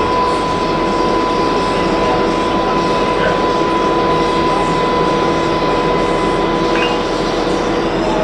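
Subway train running along elevated track, heard from inside the front car: wheel and rail noise under a steady high electric motor whine.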